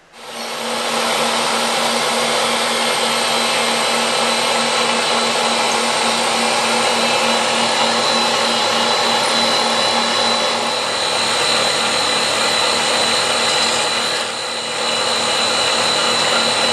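CNC milling machine running its spindle, a small end mill engraving and cutting a brass plate: a loud, steady machining whine. It eases briefly about 14 seconds in, then comes back.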